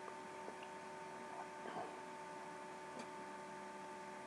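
Faint steady electrical hum, the recording's own noise, with a few faint ticks. Nothing of the water or the fishing comes through.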